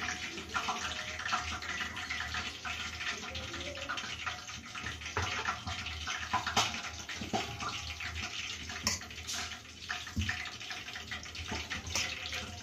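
A hand mixing flour with milk and oil into a dough in a stainless steel bowl: continuous wet squishing and rubbing, with occasional light knocks against the steel, over a low steady hum.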